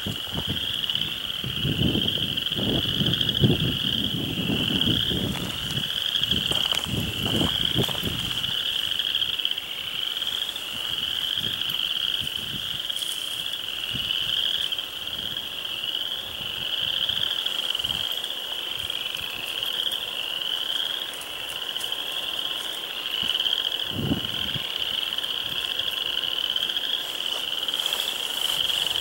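A dense chorus of frogs calling, a steady high-pitched pulsing trill that never breaks.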